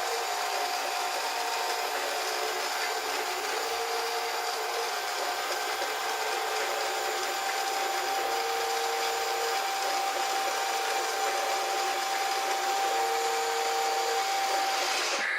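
The Top Race TR-216 toy forklift's small electric mast motor and gears whirring steadily as the forks are lowered, with a held whine and a lower tone that comes and goes, stopping abruptly near the end when the forks reach the bottom.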